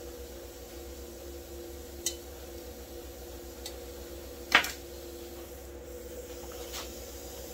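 A few light clicks and knocks of hand tools being handled on metal, the sharpest about four and a half seconds in, over a steady low hum in the background.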